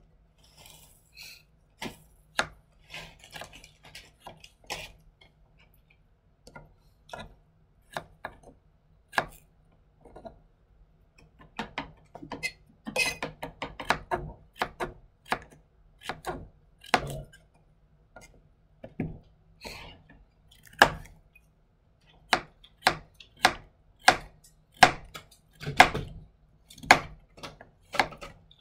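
Kitchen knife slicing chayote on a plastic cutting board: sharp, irregular taps of the blade striking the board, with a quick run of cuts about halfway through and steadier strokes about once a second near the end.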